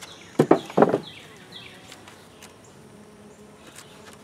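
Wooden hive lid being handled: a few loud wooden knocks within the first second, then a steady faint hum of honeybees from the nuc box.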